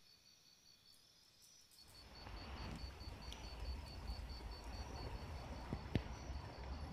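An insect's high-pitched chirp, repeated steadily about five times a second. About two seconds in, a louder outdoor rushing noise with a low rumble comes in, and there are a couple of sharp ticks near the end.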